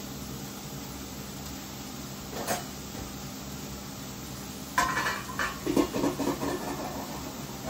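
Metal lid of a stainless steel cooking pot handled: a sharp clang about five seconds in, then a second or two of rattling metal-on-metal clatter, over a steady low hum.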